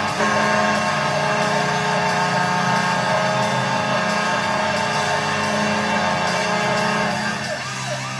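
Washington Capitals NHL goal horn recording: an arena horn held steadily with a stack of overtones. Near the end a siren joins in, wailing rapidly up and down.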